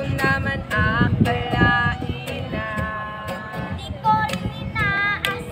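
A child singing a melody with held, wavering notes, over sharp taps keeping a steady beat about twice a second.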